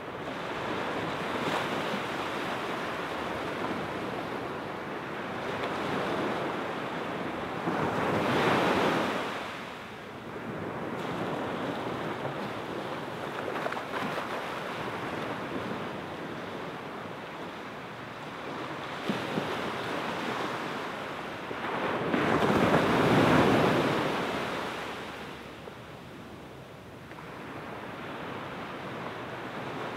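Small waves washing onto a sandy beach: a steady hiss of surf, swelling louder twice as waves break, about a third of the way in and again about three-quarters through.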